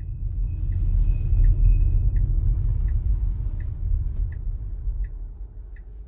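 Inside an electric Tesla Model Y's cabin: low tyre and road rumble on snow that fades as the car brakes to a near stop. Over it, the Santa-mode turn signal plays its faint jingle-bell click about every 0.7 s, with bell-like ringing in the first couple of seconds.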